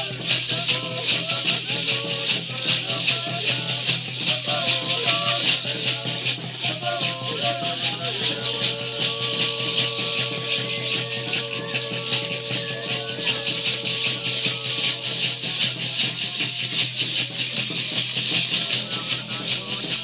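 Music driven by fast, steady shaking of maracas, with a melody over it that holds one long note from about eight to fifteen seconds in.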